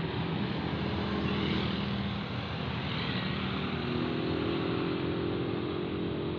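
Diesel engine of a tour bus pulling up a steep climb under load: a steady low drone whose pitch rises a little about four seconds in.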